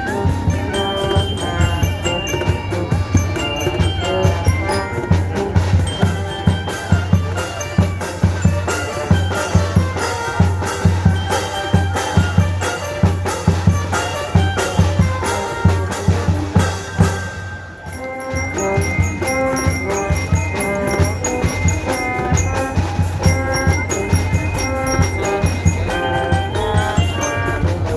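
Band music: a steady drumbeat under a melody of held notes, briefly thinning out about 18 seconds in before carrying on.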